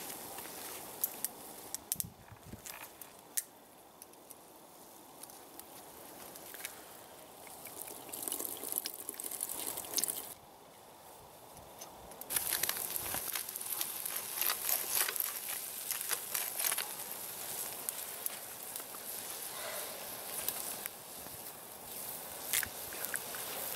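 Wood campfire crackling, with scattered sharp pops over a steady hiss. It grows louder and hissier from about twelve seconds in.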